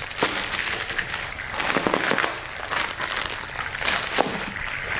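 Paper towels and plastic wrapping being crumpled and rustled while wiping up a wet mess, an irregular run of crinkling and crackling.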